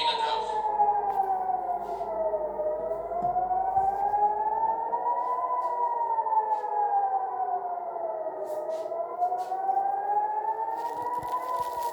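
Civil-defence air-raid siren wailing, its pitch rising and falling slowly and steadily, about one full rise and fall every six seconds. It is the alert to take shelter from incoming missiles.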